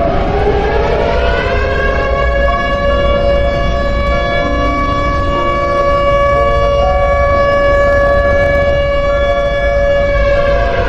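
Emergency-alarm siren tone that rises in pitch over about two seconds, holds a steady note, then falls again near the end, over a low rumble.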